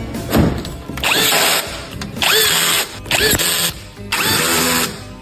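Handheld power tool run in four short bursts, each with a rising whine as the motor spins up, likely driving or removing fasteners during reassembly.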